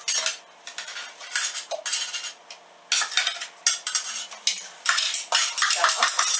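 Metal spoon scraping and tapping inside the metal bowl of an electric coffee grinder, clearing out ground nuts in many short, quick strokes.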